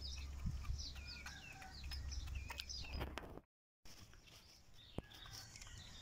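Birds chirping and calling in quick, high, gliding notes over a low steady rumble. The sound cuts out for a moment just past halfway, and the calls then go on more faintly.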